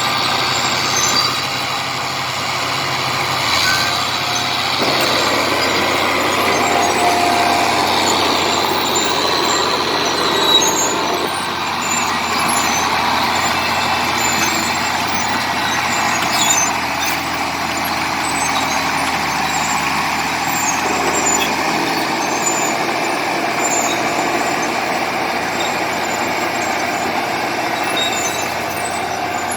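Diesel engine of a Komatsu D70LE crawler bulldozer running hard while the machine pushes clay. The engine note shifts a few times as the load changes.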